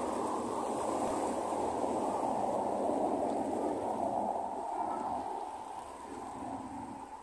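Rushing noise of street traffic, a vehicle passing close by that swells for a few seconds and fades away near the end.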